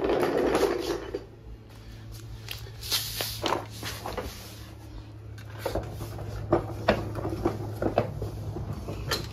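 Handling noise as someone gets down onto a shop floor and under a car: a loud rustle in the first second, then scattered knocks and clicks. A steady low hum runs underneath.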